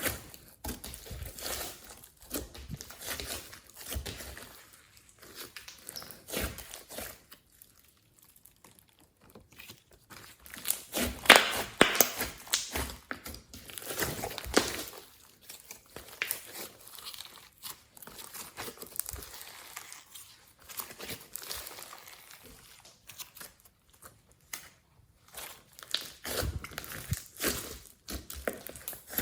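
Glossy slime being worked by hand with mix-ins, giving dense irregular crackling, popping and sticky clicking. It is loudest a little before the middle and briefly quieter before that.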